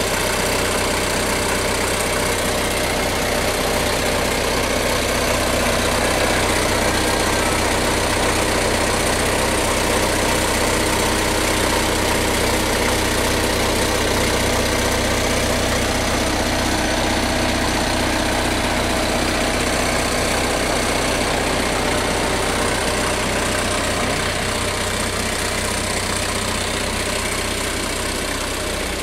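Wheeled excavator's diesel engine running steadily close by, a constant low engine hum that eases slightly in loudness near the end.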